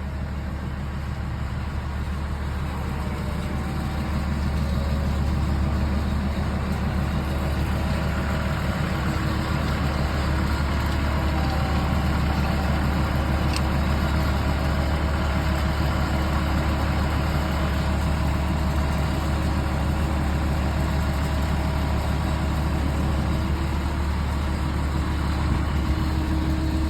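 The engine of concrete pumping equipment running steadily during a pour, a continuous low hum that grows a little louder about four seconds in.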